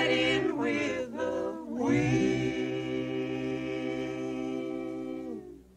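Unaccompanied voices singing in close harmony. A sliding opening phrase with brief breaks leads into one long held chord, which bends down and stops shortly before the end.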